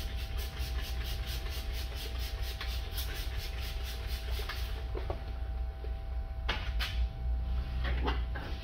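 Plastic squeegee drawn over wet door glass, giving a few short squeaks and rubs in the second half. A steady low hum runs underneath, with a fast, even high ticking in the first half.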